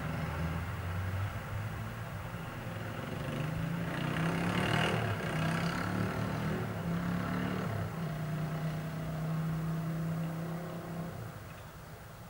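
Road traffic: a car's engine running as it passes, swelling loudest about halfway through, then a steady engine hum that fades away near the end.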